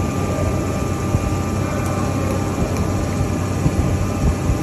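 Hydraulic rubber moulding press running, a steady mechanical drone with a constant low hum and a faint thin whine above it.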